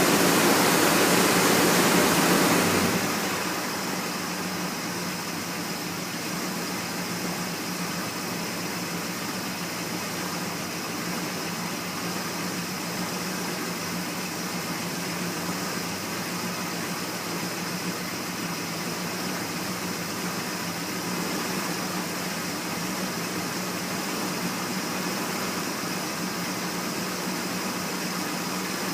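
A 1979 Ford F-150's 400 V8 idling steadily on fresh oil. It is louder for the first three seconds, then settles to a lower, even idle.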